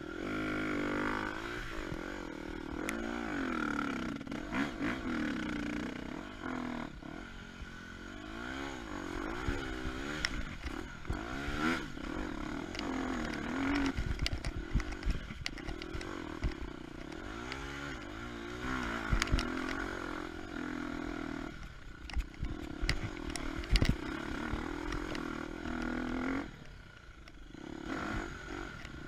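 KTM 250 EXC-F single-cylinder four-stroke dirt bike engine revving up and down as it is ridden off-road, with knocks and clatter from the bike over rough ground. The engine note drops away briefly twice near the end.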